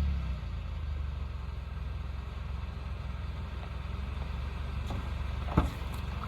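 2008 Scion xB's 2.4-litre four-cylinder idling through an HKS aftermarket exhaust, a steady low rumble as it settles back from a rev at the start. One sharp click about five and a half seconds in.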